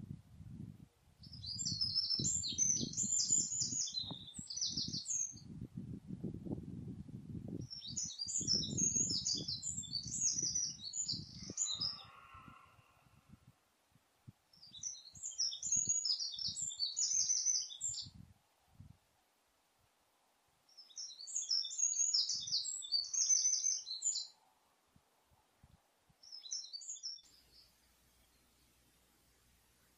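A small songbird singing: four phrases of quick, high, jumbled notes about six seconds apart, each a few seconds long, and a brief fragment near the end. Low rustling noise runs under the first half.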